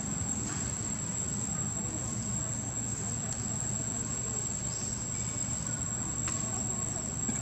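Steady outdoor ambience: a continuous high-pitched insect drone over a steady low rumble, with a few faint ticks.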